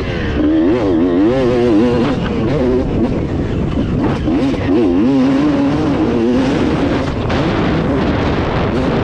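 Two-stroke motocross bike engine revving hard, its pitch swinging quickly up and down as the throttle is worked. It does this in two stretches: through the first two seconds or so, and again from about four to six seconds in, over a steady rushing noise.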